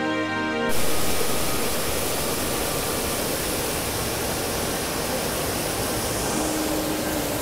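Steady rush of water from a rain-swollen mountain stream, cutting in suddenly as background music stops less than a second in.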